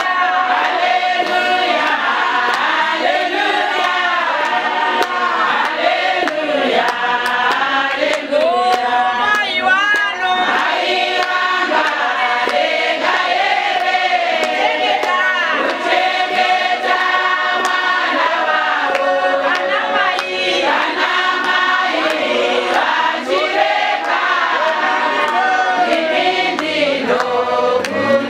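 A women's church choir singing a song in Shona together, with many voices overlapping and a woman leading on a microphone.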